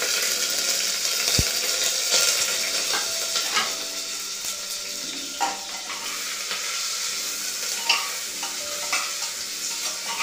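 Chopped onion sizzling in hot mustard oil, loud at first and slowly easing off. A metal spoon scrapes and clicks against the pot now and then as the onion is stirred.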